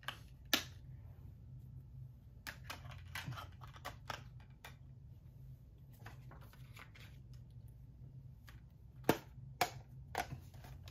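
Clicks, taps and snaps of a 4K Blu-ray SteelBook case and its discs being handled: one sharp snap at the start, a patter of small taps a couple of seconds in, and three louder snaps near the end. A faint low hum runs underneath.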